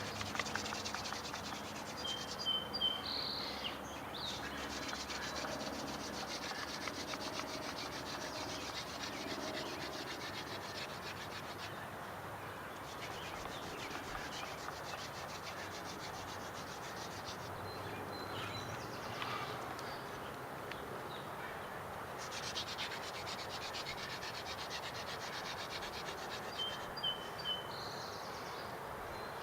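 Yucca hand-drill spindle spun between the palms, grinding steadily in the notch of the wooden hearth board in long runs broken by a few short pauses. It is friction fire-lighting, working the socket hot toward an ember.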